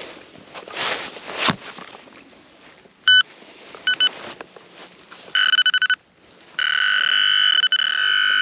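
Rustling and scraping in soil, then a handheld metal-detecting pinpointer beeping: one short beep, two more, a quick run of beeps, then a steady continuous tone from about two-thirds of the way in as it closes on a buried coin.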